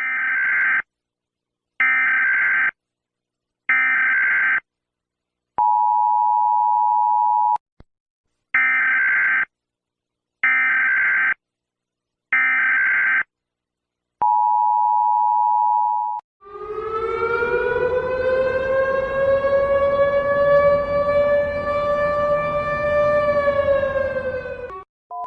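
Emergency alert tones: three short high beeps about two seconds apart, then a long, lower steady tone, the whole pattern played twice. From about two-thirds of the way in, an air-raid style civil defense siren winds up in pitch, holds its wail, and drops slightly before cutting off.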